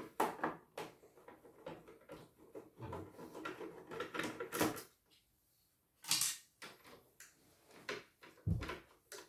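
Screwdriver working the screws in the plastic housing of a CNY E900 embroidery machine: scattered clicks and scraping, with a few sharper knocks from handling the casing.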